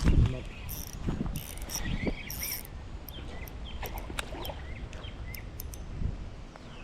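Outdoor ambience of insects chirping and a few short bird calls, with low thumps of handling noise in the first couple of seconds.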